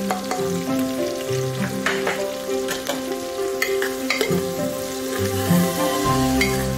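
Chopped green capsicum sizzling as it sautés in oil in an aluminium pressure cooker, with a spatula scraping and clicking against the pot every second or so as it is stirred.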